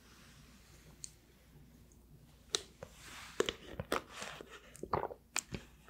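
Water sipped and swallowed quietly from a plastic water bottle. From about two and a half seconds in comes a run of sharp clicks and crinkles, close to the microphone, from the plastic bottle and cap being handled with fingernails, mixed with wet mouth sounds.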